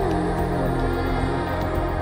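Calm ambient background music: held notes under a slow melody line that steps down in pitch in the first second.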